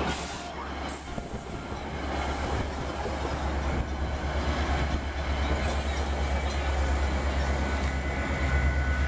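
Metra bilevel passenger cars rolling slowly past on the rails, with a low diesel rumble that grows louder toward the end as the locomotive draws near. A faint high wheel whine comes in during the second half.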